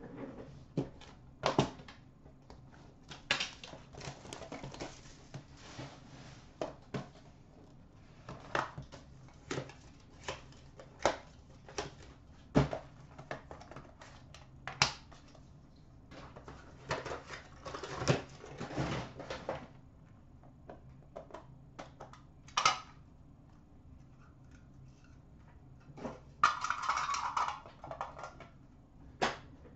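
Hands opening a box of hockey card packs and handling the cards and plastic card holders: scattered sharp clicks and taps of plastic with crinkles of pack wrappers, and a longer rustle near the end.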